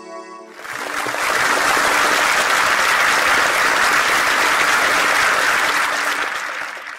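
Theatre audience applauding: the clapping breaks out about half a second in, just as the last notes of guitar music die away, swells within a second to a loud, steady level and begins to fade near the end.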